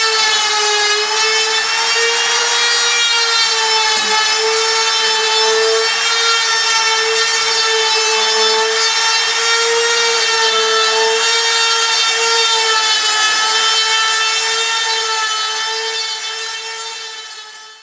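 Router with a straight cutter running at full speed while cutting a groove in melamine-faced chipboard, a steady whine that holds its pitch. This is a deeper second pass, taking an extra 4 mm out. The sound fades away near the end.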